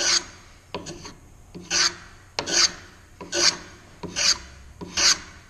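Block plane cutting a bevel on the edge of a wooden board: a string of short, quick shaving strokes, a bit more than one a second, each a brief hiss as the blade takes a shaving.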